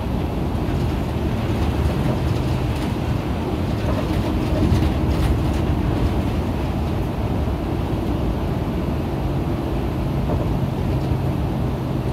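Isuzu KL-LV280N1 city bus's diesel engine running steadily with road noise, heard from inside the cabin while under way.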